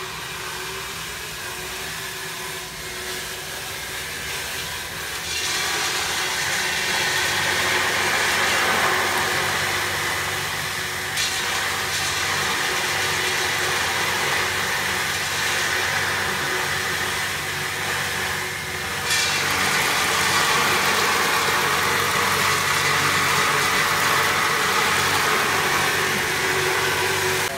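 Corenco industrial grinder running, grinding roasted almonds into almond butter through a fine slotted screen: a steady motor hum with a grinding hiss. It grows louder about five seconds in and stays loud, with a brief change in the sound twice.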